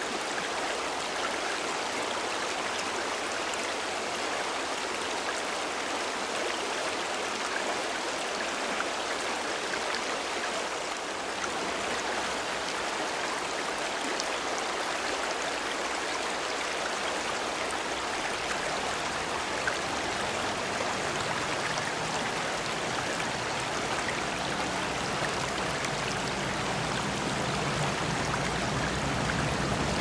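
Pyrenean mountain river (gave) flowing steadily over a stony bed, a continuous rushing of water, with a low rumble building up in the second half.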